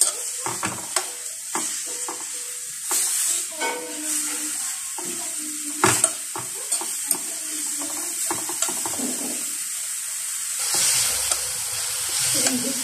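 Shirataki noodles sizzling as they dry-fry in a non-stick pan to drive off their water, while metal tongs toss them, with short clicks and scrapes of the tongs against the pan. The sizzle grows louder near the end.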